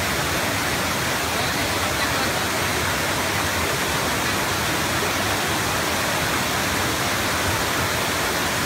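Wide, tiered waterfall pouring over rock ledges into a pool: a steady rush of falling water that holds at an even level.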